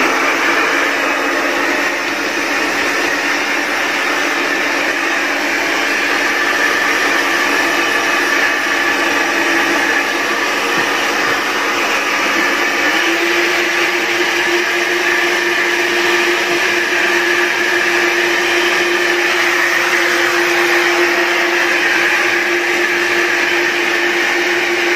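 Handheld electric hair dryer running steadily while drying a small dog's fur. Its motor hum steps up to a higher pitch about halfway through.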